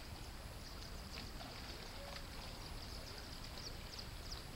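Outdoor ambience: small birds chirping repeatedly in short, high, falling notes over a steady low rumble.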